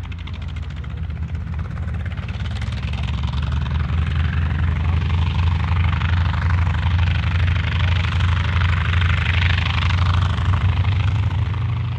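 North American T-28 Trojan's radial piston engine and propeller running steadily with a low, even throb, growing louder over the first few seconds and then holding.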